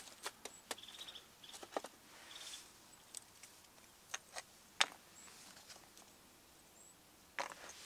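Small split pieces of firewood knocking and clicking against each other as they are handled and stacked, in scattered sharp knocks with the loudest just before five seconds in. Small birds give short trills and chirps now and then.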